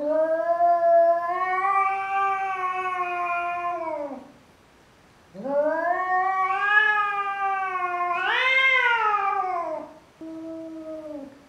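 Domestic village cat yowling at its own reflection in a mirror, taking it for a rival: three long drawn-out yowls, the second rising in pitch near its end and the last one short.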